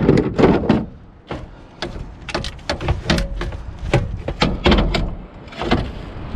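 Scrap items being shifted and knocked about while rummaging through a dumpster: a quick run of sharp knocks and clanks, over wind rumble on the microphone.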